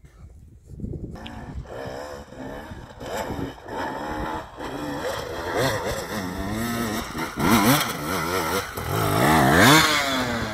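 Dirt bike engine revving hard in quick, repeated rises and falls of pitch, starting about a second in and getting loudest near the end.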